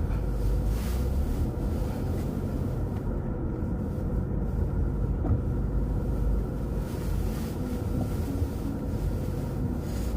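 Steady low rumble, like wind on the microphone and passing traffic, with a faint steady tone underneath.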